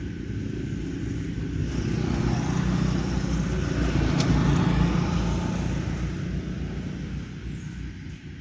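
A motor vehicle driving past: a low engine and road rumble that grows louder, is loudest about halfway through, then fades away.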